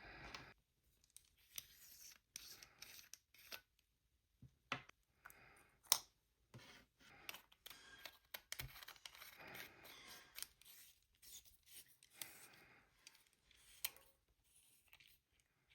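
Faint handling noises: rustling and scraping with scattered sharp clicks, the loudest about six seconds in.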